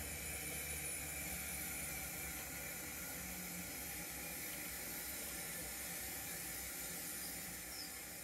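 Model steam tank locomotive in 7mm scale running along the track: a steady hiss over a low rumble that slowly fades near the end.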